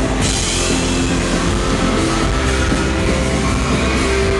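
Live pop-rock band playing loud through a PA in a large hall: electric guitar and keyboard over drums.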